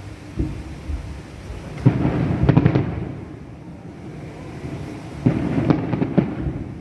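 Fireworks going off: a loud bang about two seconds in, followed by a quick run of cracks, then another bang and run of cracks near the end, over a steady low rumble.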